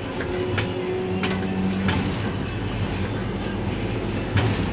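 Cabin noise inside a moving green minibus: steady engine and road noise. Three sharp clicks or rattles come in the first two seconds, and a louder one near the end.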